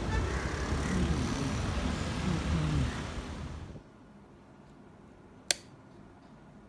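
Street traffic noise that cuts off suddenly a little before four seconds in, then quiet with a single sharp click about five and a half seconds in: the switch of a small battery-powered LED circuit being pressed, turning its LEDs on.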